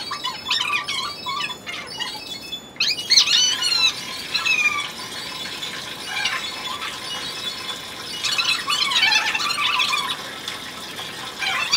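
Wet Pomeranian puppy whining in repeated high-pitched squeals with falling glides while water is poured over it from a jug.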